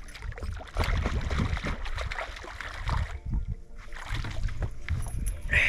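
Hooked largemouth bass splashing and thrashing at the water's surface beside the boat as it is played in, in irregular surges, with a louder splash near the end.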